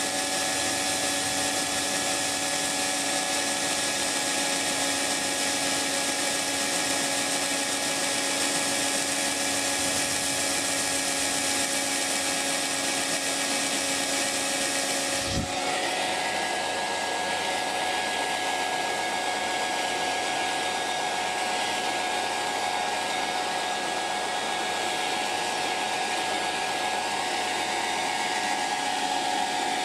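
Hair dryer running steadily, a rushing airflow with a whining hum. About halfway through there is a brief low thump and the hum's pitch and tone change abruptly.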